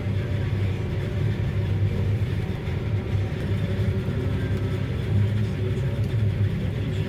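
Heavy diesel farm machinery running steadily at working speed, a constant low engine drone.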